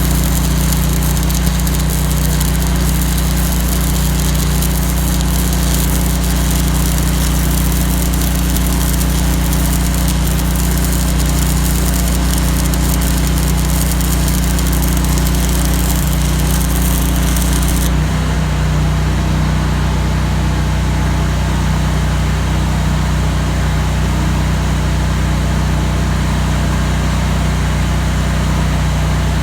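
Stick-welding arc crackling and hissing from 3/16-inch 5P+ rod over the steady drone of a Lincoln Ranger 250 engine-driven welder under load. About 18 seconds in the arc breaks off and the crackle stops, and the engine runs on with its note changing as the load comes off. The welder feels the output is a little under the 180 amps set.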